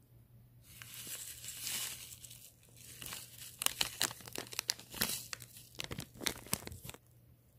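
Crinkling and rustling of packaging being handled: a soft rustle for about two seconds, then a run of sharp crackles that stops shortly before the end.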